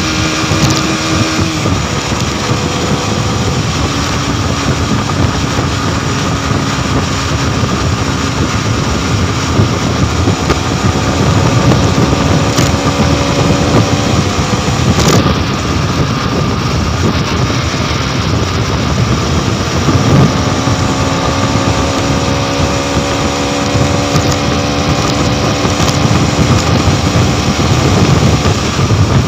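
Modenas NS200's single-cylinder engine running hard at highway speed, its note slowly climbing as the bike gains speed, under heavy wind rush on the microphone.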